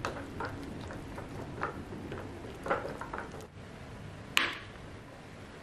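A spoon stirring thick, wet batter in a glass bowl, with soft squelching scrapes, then a knife slicing through a block of tempeh on a cutting board. One sharper click stands out about four and a half seconds in.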